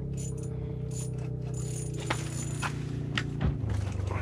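Ice-fishing reel giving line against its drag as a hooked northern pike pulls, with a few sharp clicks, over a steady low hum.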